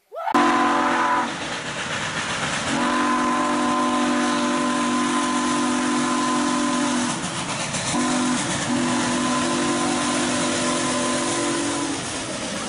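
Steam locomotive's chime whistle blowing several blasts over a steady loud hiss of steam. The blasts end long, short, long, the signal sounded for a road crossing.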